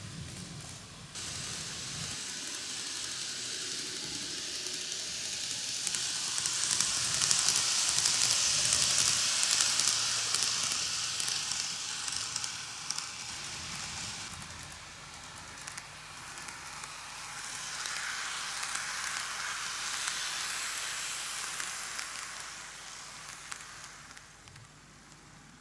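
N gauge model train (Greenmax Keio 1000 series five-car set) running on TOMIX track: a steady whirring hiss of wheels on rail and motor that swells as the train comes close, fades, swells again on a second pass and dies away near the end.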